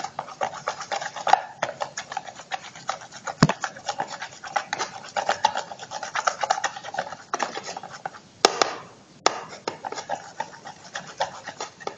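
A spoon stirring a mix of glue and dish soap in a small bowl, scraping and clicking against the bowl in quick, uneven strokes.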